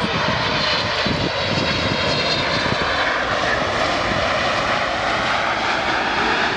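Boeing 777-300ER's two GE90 turbofans running at high power in reverse thrust just after touchdown: a steady, loud rush of jet noise with faint high whining tones, braking the airliner on its landing roll.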